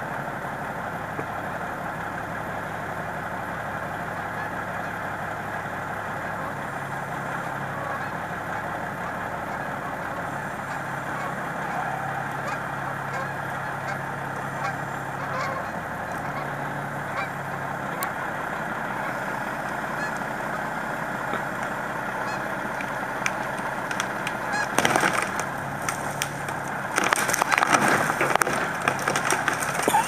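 A crane truck's engine runs steadily under a dense chorus of honking calls from a flock of birds. In the last few seconds come loud cracks and snaps as the crane tears a large branch out of the tree.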